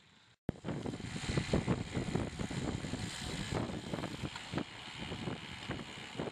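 Wind buffeting the microphone of a bike-mounted camera while riding with a group of road cyclists: loud, gusty rushing with irregular low thumps. It starts abruptly about half a second in, after a brief quiet stretch.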